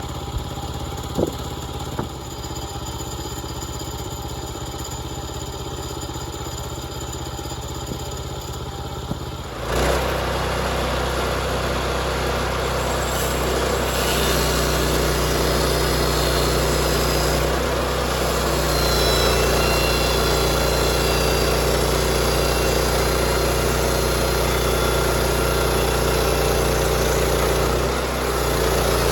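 Small gas engine of a portable bandsaw sawmill running steadily at low speed, with a few light clicks near the start, then throttled up about ten seconds in and running louder and steady.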